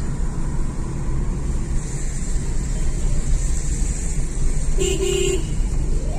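Steady low engine and tyre rumble heard from inside a car's cabin on a wet mountain road, with two short car-horn beeps close together about five seconds in.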